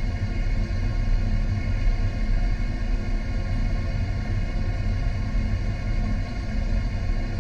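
Water-circulation and pump noise in a fish-farming tank: a steady low rumble with a faint hum of several steady tones above it.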